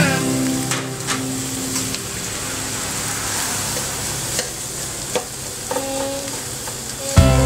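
Beef, onion and carrot sizzling in a steel wok while a metal spatula stirs them, with a few sharp scrapes of the spatula against the pan. Music comes in loudly just before the end.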